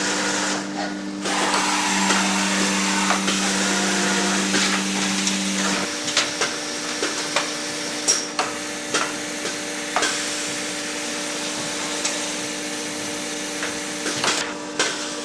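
Automatic CNC circuit-board scoring machine running: a steady mechanical drone with a hum that grows louder about two seconds in and stops about six seconds in, under irregular clicks and clunks from its moving parts.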